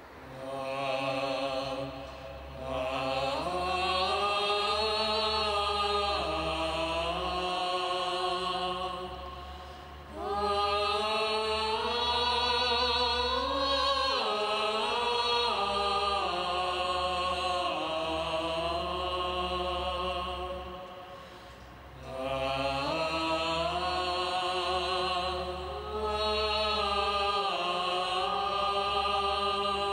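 Slow, chant-like vocal music in three long phrases, the held notes gliding and wavering, over a low sustained tone, with short breaks about nine and twenty-one seconds in.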